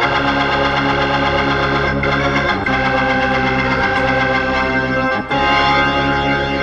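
Hammond-style organ solo: sustained organ chords over a low bass, the notes changing every second or so.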